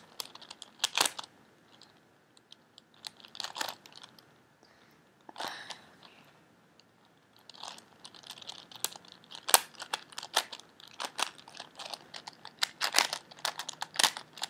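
A plastic 4x4x4 Rubik's Cube being turned by hand, its layers clicking and clacking as they turn. There are a few short runs of turns with pauses between them, then a longer, rapid run of clicks from about halfway in.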